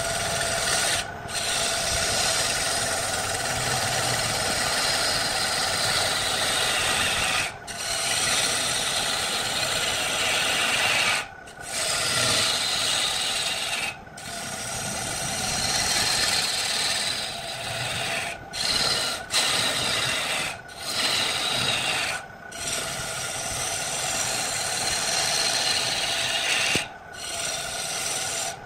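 A turning tool cutting into a large wooden blank spinning on a wood lathe: a continuous rasping hiss of shavings being peeled off, over the lathe's steady hum. The cutting sound drops out briefly several times and then resumes.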